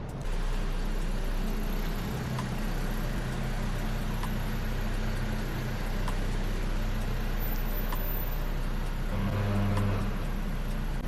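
A car driving: steady road and engine noise with a low hum that swells briefly near the end.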